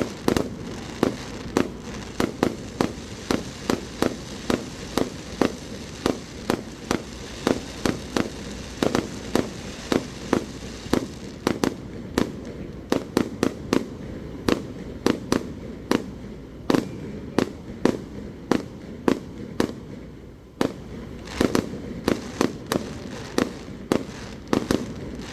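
Aerial firework shells bursting in a rapid barrage, sharp bangs about two to three a second over a continuous rumble and echo.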